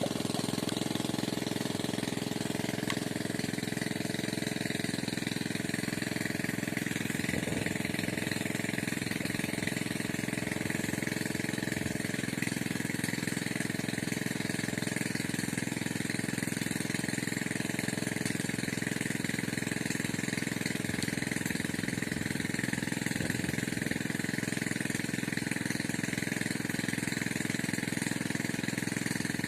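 An engine running steadily, an even, unchanging drone.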